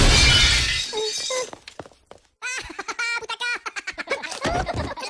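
Sudden crash of glass shattering, ringing out and fading over about a second and a half. Then high cartoon Minion voices laugh in quick, even bursts.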